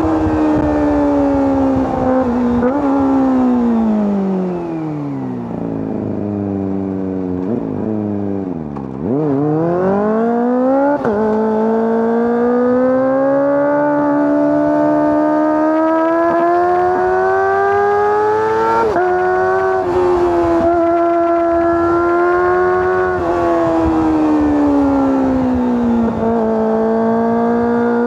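Kawasaki ZX-25R's 250 cc inline-four engine and exhaust under way. The revs fall over several seconds with brief throttle blips, then climb steeply. Two sudden drops in pitch mark upshifts, and the engine settles into a high, steady whine, easing and rising again near the end.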